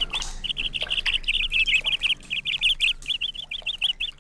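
Bird calling in a fast, chattering run of short high notes that repeat rapidly, with a brief pause just after the start.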